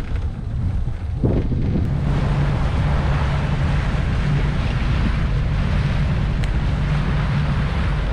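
A motorboat under way: the boat's motor hums steadily beneath heavy wind buffeting the microphone and rushing water, all growing louder about a second in.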